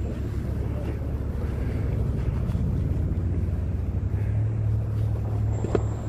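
Vehicle engine running nearby, a steady low drone that grows louder about four seconds in.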